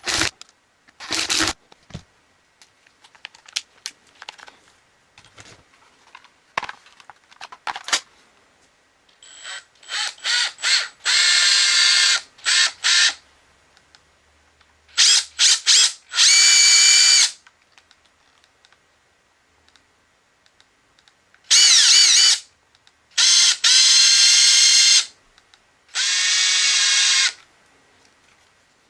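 Makita TD172D 18V brushless impact driver running free in short trigger bursts of about a second each, repeated several times. The motor whine rises and wavers in pitch as the trigger is worked. Light clicks and handling taps come between the runs, mostly in the first half.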